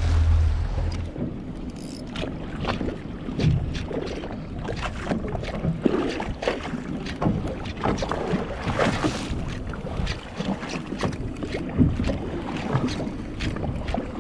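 Water slapping and lapping in irregular small splashes against the hull of a drifting fishing boat, with wind on the microphone. A low hum fades out about a second in.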